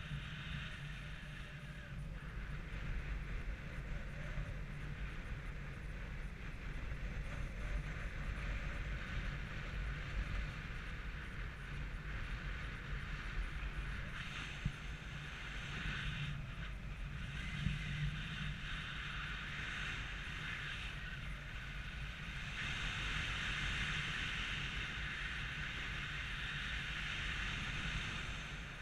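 Wind rushing over the camera's microphone in paragliding flight, a steady rush that swells louder in stretches, most of all near the end.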